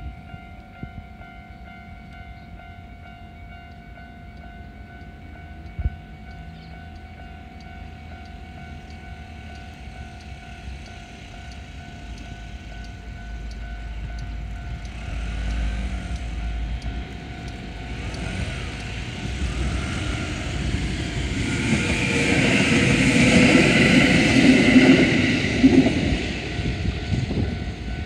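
Japanese railway crossing alarm ringing steadily, then a Kintetsu limited express train approaches and passes over the crossing, its rumble and rail noise building from about halfway through, loudest near the end and drowning out the alarm, then easing off at the very end.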